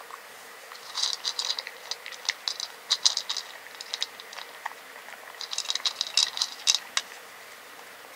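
Cat crunching dry kibble from a clear plastic bowl: bursts of crisp crunching about a second in, around three seconds, and again from about five and a half to seven seconds.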